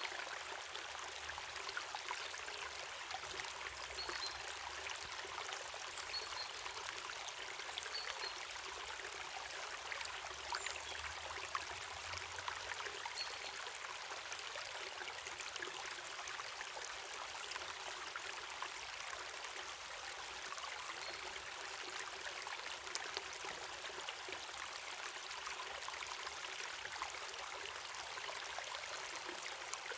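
Waterfall and river water running, a steady, even rush with no breaks.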